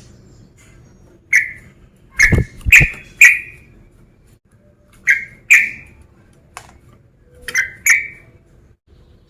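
Male yellow-vented bulbul calling: short, loud, bubbly notes in groups of one to three, repeated about every two seconds.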